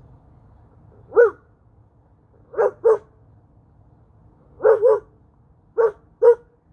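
A person imitating a wolf's bark with her voice: seven short, loud barks, singly and in quick pairs, the first about a second in.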